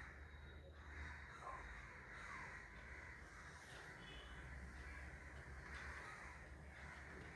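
Crows cawing faintly in the background, several short falling calls, over a low steady hum.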